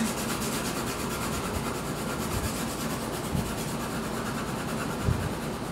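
2H graphite pencil held on its side, shading across drawing paper: a steady scratchy rubbing of long strokes.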